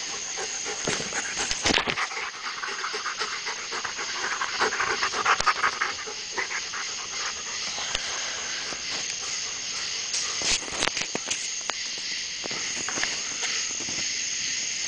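German Shepherds rough-housing: irregular scuffling with scattered knocks and rustling, busiest about four to six seconds in, as the camera is jostled.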